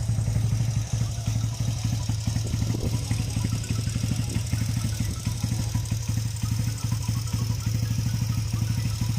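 Rebuilt Motorstar Zest X single-cylinder four-stroke engine idling steadily on its first start. It ticks, which the owner puts down to tappets that still need adjusting.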